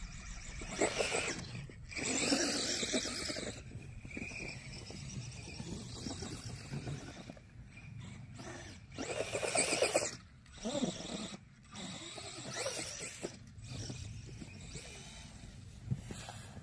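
Brushless electric motor of a Traxxas Bandit RC car whining in repeated bursts of throttle, its paddle tires churning snow.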